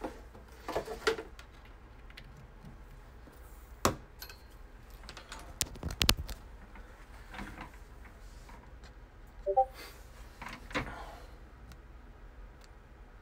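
Scattered light clicks and knocks of small objects being handled, with a short pitched blip about nine and a half seconds in.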